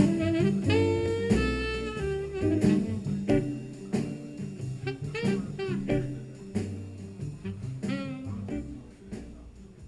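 Jazz with a saxophone lead over bass and drums, played back through MartinLogan Neolith electrostatic loudspeakers and heard in the room. It grows quieter near the end.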